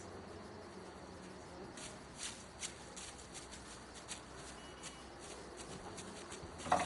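Faint footsteps and rustling of a runner on leaf-covered ground, with a few sharp crunches in the middle and a brief louder sound right at the end.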